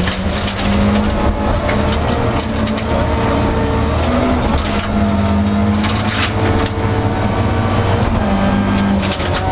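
Group H rally car engine running hard inside the cabin on a gravel stage, its note breaking off and picking up again several times as the gears change. Scattered sharp ticks of gravel against the car run over it.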